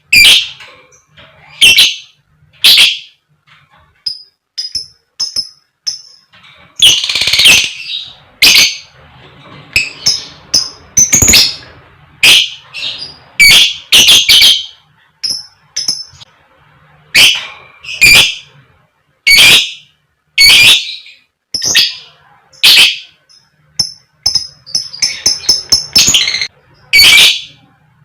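Fighter lovebird giving loud, harsh 'koek koek' calls about once a second, broken twice by quick runs of thin, high 'cik cik' chirps.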